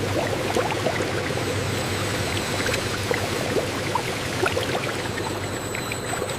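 Liquid pouring steadily, with many small bubbling blips through it.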